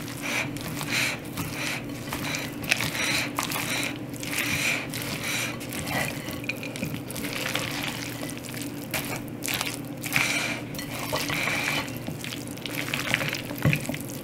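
Wet squelching and scraping of mayonnaise-dressed chicken salad being stirred with a silicone spatula in a glass bowl, in irregular strokes, over a steady low hum.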